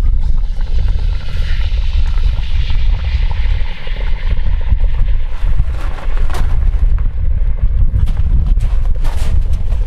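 Molten copper, brass, bronze and orpiment alloy poured from a crucible into a cast-iron pot of sour quenching liquid, hissing and sizzling as it quenches. The hiss is strongest in the first few seconds, followed by scattered sharp crackles. A loud, steady low rumble runs underneath.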